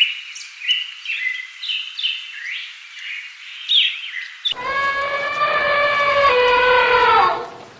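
Small birds chirping rapidly in quick, sweeping peeps. About four and a half seconds in, a long, loud pitched animal call takes over, lasting nearly three seconds, dropping a step in pitch partway and sliding down at the end.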